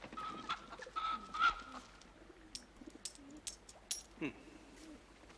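Caged chickens calling: a few held, slightly wavering high calls in the first two seconds, then scattered light clicks and a short falling call near the end.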